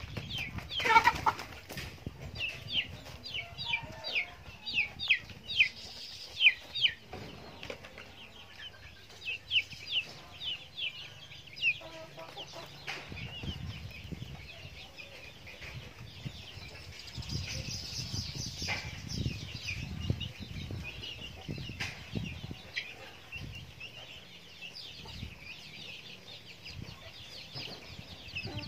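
Young chickens pecking feed off a plastic tarp, giving a rapid run of short, high, falling chirps and clucks over soft taps of beaks on the tarp.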